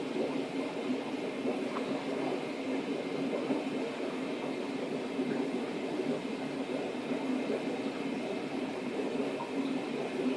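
Steady drone and airy rush of fish-room aeration running: an air pump feeding airline-driven tank filters.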